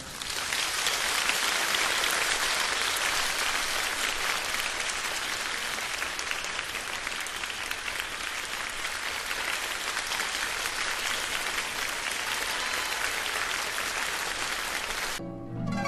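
Theatre audience applauding, a steady even clapping. It stops abruptly near the end, and plucked-string orchestral music begins.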